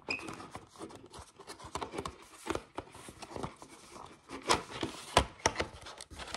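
Clear plastic CD jewel case being handled and squeezed, giving irregular clicks, taps and creaks of hard plastic. The two loudest snaps come about four and a half and five seconds in as the case is pushed shut.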